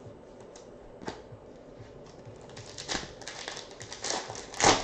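Trading cards being handled and flipped through by hand, with a pack wrapper rustling: a single click about a second in, then a quick run of clicks and rustling over the last two seconds, loudest near the end.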